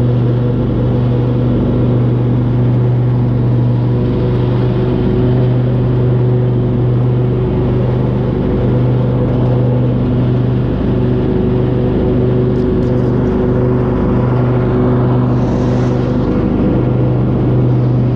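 Small engine running steadily at an even speed, a constant low hum with no change in pitch.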